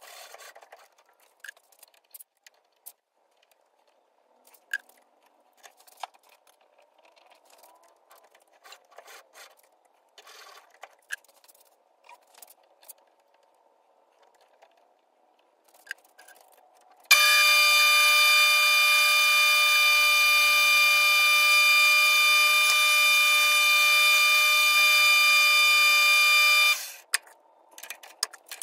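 Scattered light clicks and taps of hand tools and calipers at a metal lathe, then about 17 seconds in the lathe starts and runs with a loud steady whine for about ten seconds before cutting off suddenly.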